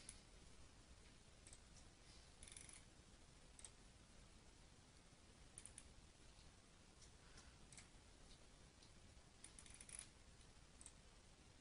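Near silence with faint, scattered computer mouse clicks, some in quick clusters.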